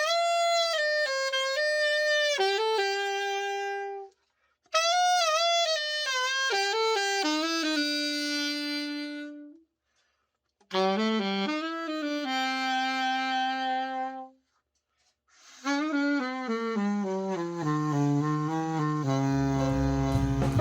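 Maestro AS-100 alto saxophone, freshly overhauled, played in a play test: four short phrases of held and stepping notes, each moving down in pitch, with brief silences between them. Near the end a deeper backing comes in beneath the last phrase.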